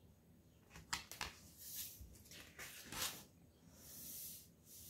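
Faint handling of a hardback picture book: a few light knocks about a second in, then soft paper rustling as the pages are turned.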